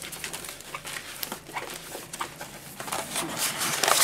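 Plastic wrapping on a rolled diamond-painting canvas crinkling and rustling as it is handled and unwrapped, with irregular crackles and a louder burst of rustling near the end.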